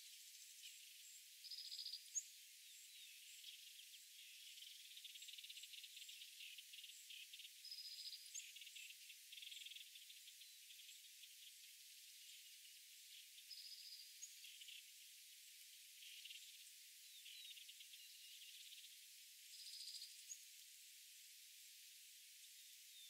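Faint dusk chorus of trilling insects: rapid high pulsed trills that come and go, with a short high note repeating about every six seconds.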